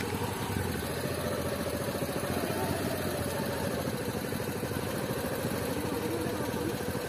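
Motorcycle engine running steadily at low revs, close by.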